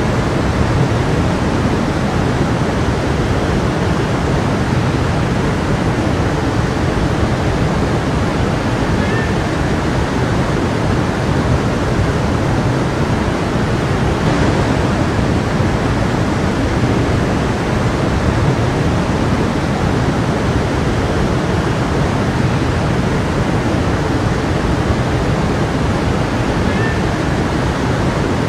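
A stream flowing and babbling in a steady, continuous rush of water.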